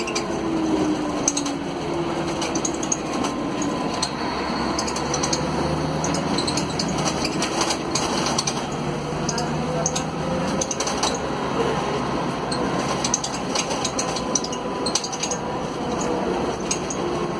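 Mercedes-Benz OM457LA diesel engine of an O500 UA articulated bus heard from inside the cabin while under way: its drone climbs in pitch for several seconds mid-way, then drops back. Loose cabin fittings and panels rattle and click over it.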